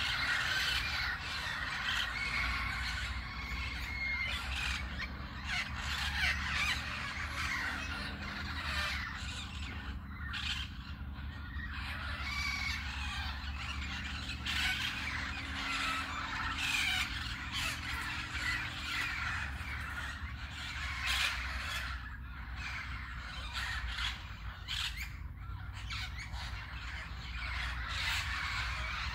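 A flock of parakeets roosting in a tree, squawking and screeching non-stop, with many harsh calls overlapping into a dense chatter.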